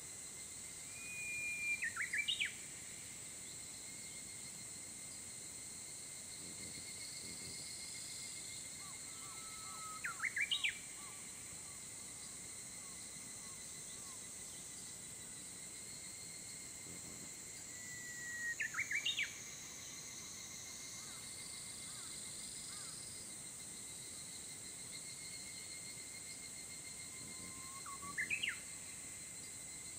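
A Japanese bush warbler singing its 'hoo-hokekyo' song four times, about eight seconds apart: each a long held whistle followed by a quick flourish of sharp notes. A steady high hum of insects runs underneath.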